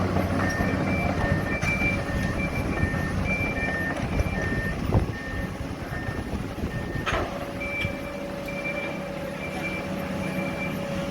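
Heavy-equipment diesel engine running, with a reversing alarm beeping about twice a second. A heavy thump comes about five seconds in, and a higher-pitched backup beeper takes over for the last few seconds.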